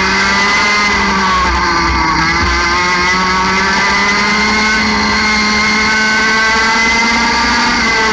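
60cc single-cylinder two-stroke kart engine at racing revs, heard onboard. Its pitch rises, dips briefly about a second in as it comes through a corner, then climbs steadily along the straight to around 14,000 rpm before easing slightly near the end.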